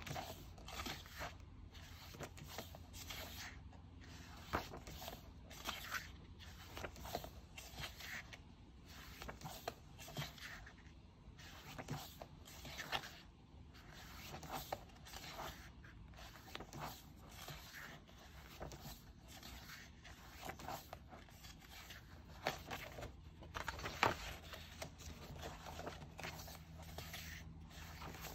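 Pages of a photo book being turned and smoothed by hand: paper rustling and sliding in irregular short swishes, with one louder page flip near the end.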